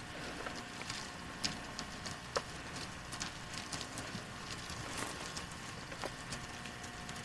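Irregular crackling clicks, a few to several a second, of footsteps moving through dry sagebrush.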